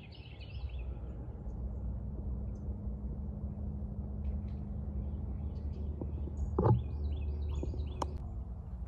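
Outdoor ambience: a steady low rumble and hum, with birds chirping briefly at the start and again from about six to eight seconds in. There are two sharp clicks, one at about seven seconds and one at about eight.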